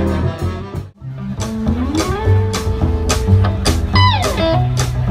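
Live band music: electric guitar over a drum kit and upright bass keeping a steady beat. The music drops out for a moment about a second in, then picks up again with a long rising, held note.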